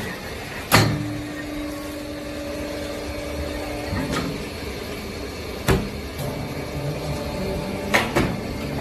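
Steady machine hum in a factory, broken by about five sharp knocks and clacks at irregular spacing. A low, even hum tone runs for about three seconds early on.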